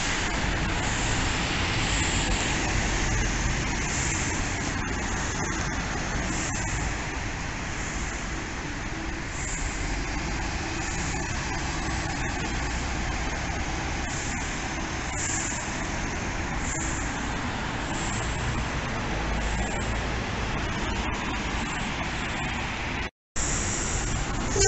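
Volvo B7RLE city bus driving off from a stop, its engine running amid steady road-traffic noise with a strong low rumble. The sound breaks off for a moment near the end.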